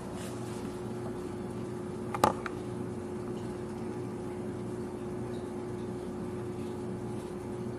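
Steady room hum with a faint constant tone, and one short sharp click about two seconds in.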